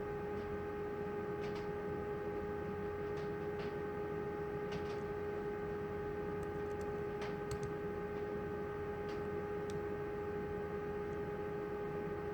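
A steady, even background hum, with a few faint light clicks and taps scattered through it from a tool working the tailpiece off a lock cylinder.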